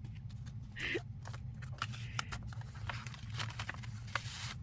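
Paper and plastic packaging rustling and crinkling with many small sharp clicks as sticker sheets are handled, with a longer rustle near the end over a low steady hum.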